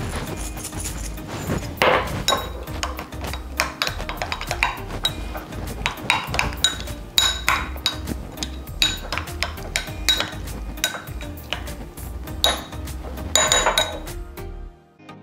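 A metal utensil clinking and scraping against a small glass bowl while stirring a buttery mixture, over background music. The clinking stops near the end.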